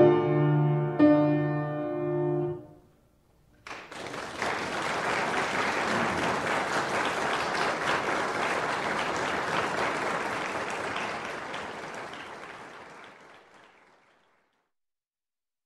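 Piano plays the closing chords of the piece, which end a little under three seconds in. After about a second of silence, an audience breaks into applause that gradually fades away.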